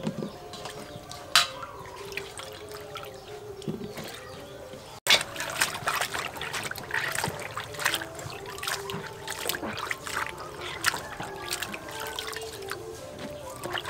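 Water splashing and sloshing in a steel bowl as hands wash long beans and red chilies, with water streaming off as they are lifted out. Before that, wet cherry tomatoes drop into a plastic colander with dripping water and one sharp knock about a second and a half in.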